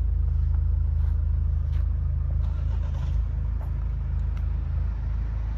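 The Land Rover Defender 130's Puma 2.2-litre four-cylinder diesel idling steadily, a low, even rumble.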